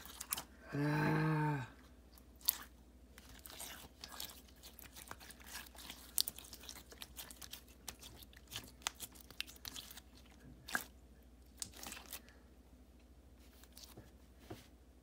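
Thick slime being squeezed and worked in the hands, making scattered small wet clicks and pops from air trapped in it. About a second in there is a louder, short, low pitched sound.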